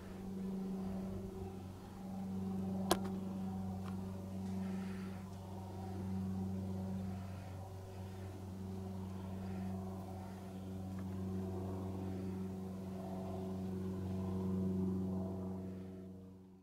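Steady low hum of a running motor, swelling and easing slowly, with a single sharp click about three seconds in.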